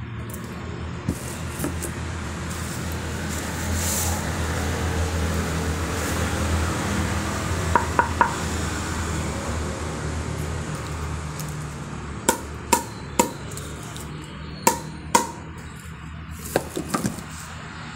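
Fingers tapping the face of a pickleball paddle: sharp knocks with a short ringing pop, three in quick succession about eight seconds in, then several more groups of two or three near the end. A steady low hum runs underneath.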